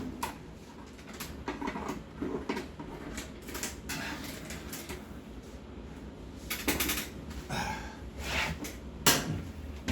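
Scattered light clicks, taps and rustles of parts and tools being handled, with a louder sharp knock about nine seconds in.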